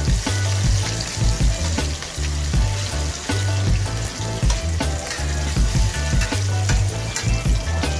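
Bindaetteok (mung bean pancakes) sizzling in shallow oil on a flat steel griddle, with a metal spatula scraping and clacking against the griddle many times as the pancakes are pressed and turned.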